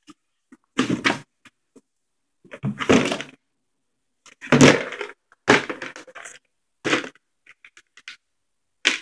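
Handling noise: a handheld phone bumping and rubbing against clothing, heard as irregular short knocks and scrapes, about six in nine seconds, the loudest a little under five seconds in.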